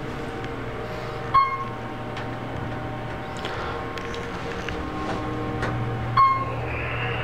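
Otis Series 1 hydraulic elevator cab in travel, with a steady low hum. A single chime sounds about a second and a half in and again near the end, the signal of floors being passed.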